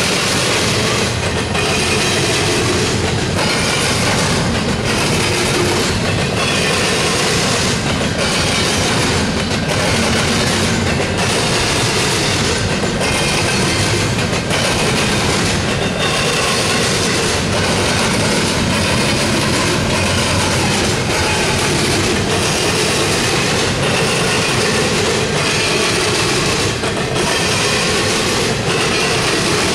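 Double-stack intermodal freight train rolling past at close range: the mid-train EMD SD70M-2 diesel locomotive goes by first, then loaded well cars, with steady wheel and rail noise and a rhythmic clickety-clack as trucks pass over rail joints. A faint wavering wheel squeal rises in the second half.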